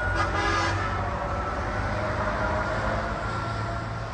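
Road traffic, with a vehicle engine running as a steady low hum and some higher held tones.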